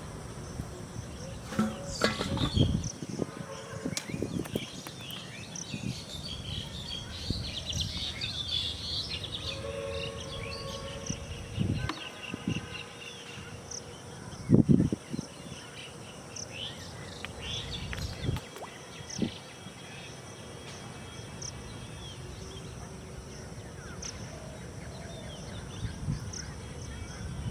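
Outdoor pond-side background with small birds chirping and several dull thumps, the loudest about halfway through.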